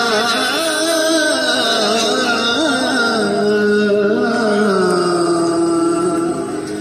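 A man singing a Hindi film song solo, one melodic line with wavering ornaments. About five seconds in he holds a long note, and the line breaks off briefly near the end.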